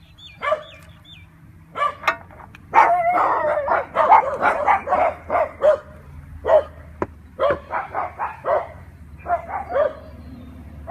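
A dog barking in quick repeated runs of barks with short gaps, starting about two seconds in and densest in the middle.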